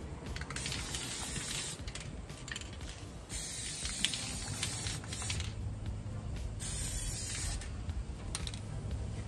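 Aerosol can of triple thick crystal clear glaze spraying in three short bursts of hiss: one about half a second in lasting about a second, a longer one of about two seconds starting around three seconds in, and a brief one near the end.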